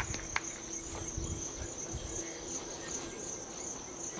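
Insects trilling steadily at a high pitch, with two sharp clicks in the first half second and a low rumble of wind or handling underneath.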